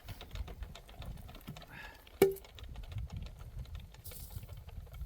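Light clatter and low thuds of firewood being handled, with one sharp wooden knock about two seconds in that rings briefly.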